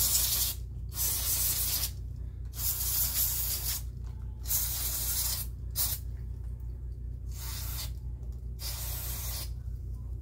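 Aerosol spray hissing in about seven separate bursts, most about a second long and two very brief, as the dirty movement of an electromechanical car clock is sprayed clean. A steady low hum runs underneath.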